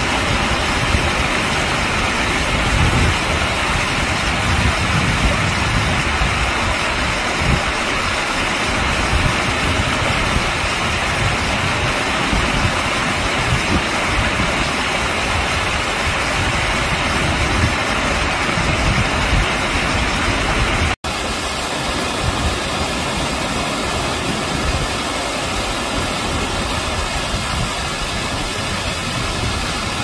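Steady rush of water pouring over a small weir in a stream. It cuts out for an instant about two-thirds of the way through, then runs on slightly quieter.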